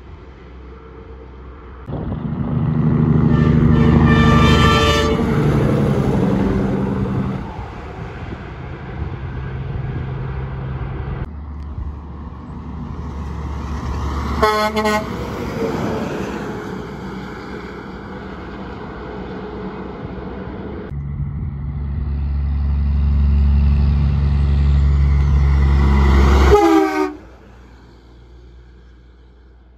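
Trucks driving past with their diesel engines running, each sounding its air horn: a horn blast about four seconds in, short blasts around the middle, and a final blast near the end that drops in pitch as the truck goes by. The sound changes abruptly twice between passes.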